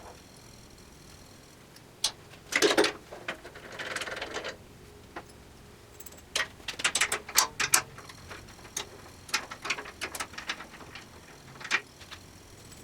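Hand tools and metal saw parts clinking and knocking as a table saw's motor assembly is taken apart: irregular sharp clicks in clusters, the loudest knock about two and a half seconds in, and a short scraping rustle at about four seconds.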